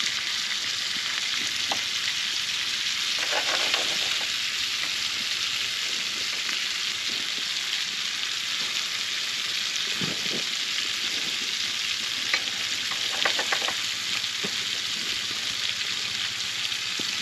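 Freshwater fish frying in hot oil in a pan: a steady, even sizzle, with one sharp click about twelve seconds in.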